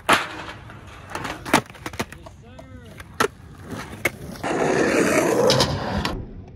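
Skateboarding: four sharp clacks of the board landing and hitting the box and pavement in the first four seconds, then about two seconds of skateboard wheels rolling over rough pavement.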